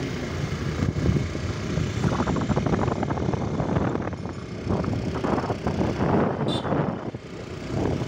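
Wind buffeting the phone's microphone while riding a Honda Activa scooter, a gusty rumble that rises and falls, with the scooter's engine running underneath. It dips briefly about seven seconds in.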